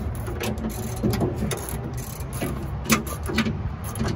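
Hand ratchet wrench clicking in short irregular runs as a shock absorber mounting bolt is turned loose.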